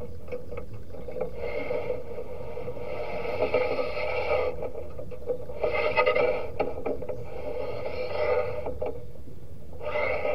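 Zebra dove (perkutut) cooing: a string of about five coo phrases, each one to one and a half seconds long with short gaps between them.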